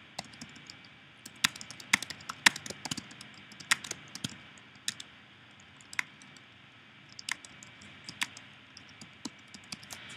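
Typing on a computer keyboard: irregular runs of sharp key clicks with short pauses between words, densest in the first few seconds and sparser later on.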